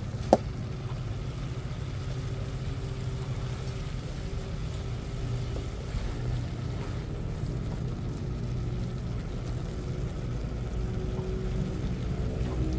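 Wind buffeting the microphone: a steady low rumble, with one sharp click shortly after the start.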